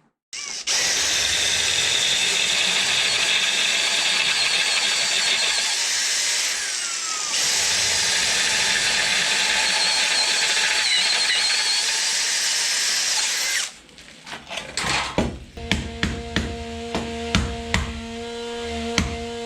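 Power drill boring out spot welds in a steel bracket, running steadily in two long runs with a short easing-off in between. Near the end the drilling stops and a series of sharp knocks follows.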